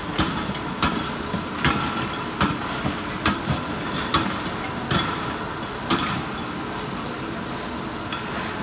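Shrink sleeve labeling machine running, with aerosol cans on its conveyor: a steady mechanical hum with a sharp metallic click about every 0.8 seconds that stops about six seconds in, leaving the hum alone.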